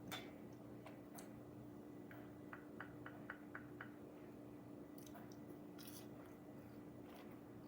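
Quiet chewing, mouth noises of a person eating, with a quick run of about six soft clicks in the middle and a few sharper ticks, over a faint steady hum.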